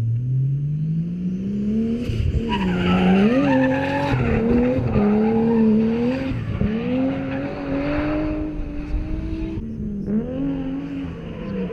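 Drift car's engine revving hard, its pitch climbing and then rising and falling with the throttle, while the tyres screech through a long slide from about two seconds in until nearly ten seconds. The revs drop briefly near the end and climb again.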